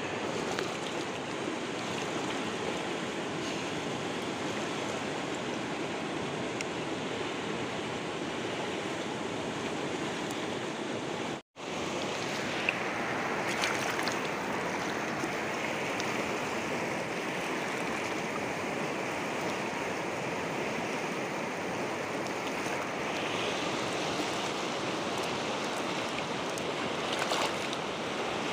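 Steady rushing outdoor noise, even and unbroken apart from a momentary dropout about eleven seconds in.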